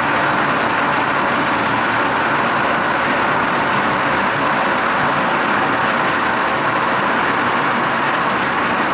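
A long string of firecrackers going off in one unbroken, dense crackle, loud and steady.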